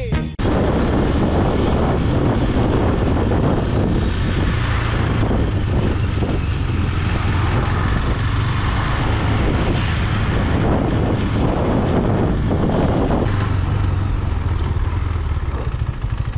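Onboard sound of a KTM Duke 390 single-cylinder motorcycle being ridden: a steady engine rumble under heavy wind noise on the microphone. The engine note shifts about thirteen seconds in.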